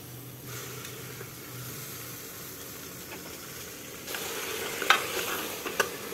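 Raw minced meat sizzling as it is dropped into hot oil and fried onions in a pressure cooker. The sizzle grows louder about four seconds in, and two sharp metal clinks come near the end.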